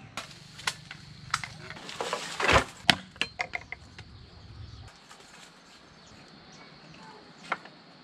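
Hand tools striking hard earth: a run of sharp knocks and thuds, the loudest about two and a half seconds in, then a quick string of lighter clicks. After that it goes quieter, with a single knock near the end.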